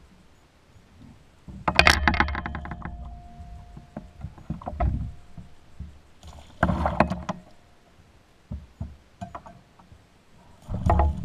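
Clattering and knocking as a landed striped bass, a fish lip grip and a wire Alabama rig of swimbaits are handled against a plastic kayak hull, in several short bursts with low thuds and small clicks between them.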